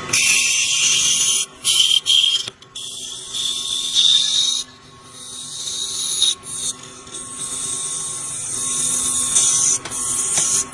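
Lathe tool cutting a spinning clear blue plastic rod: a high hissing cut that starts and stops several times as the passes begin and end, with a rising whine in one pass, over a faint steady machine hum.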